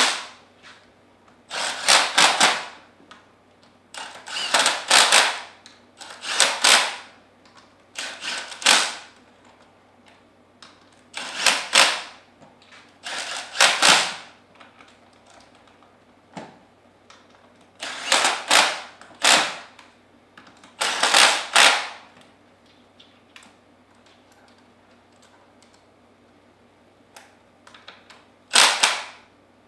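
Cordless impact wrench with a socket hammering in short bursts, about a dozen of them under a second each, running the pump's manifold bolts down just snug. After a longer pause comes one last burst near the end.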